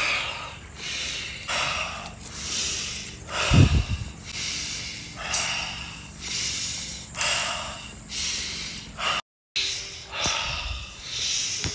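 A person breathing deeply and rhythmically through the nose and mouth as a meditation breathing exercise, about one breath a second. There is one low thump about three and a half seconds in.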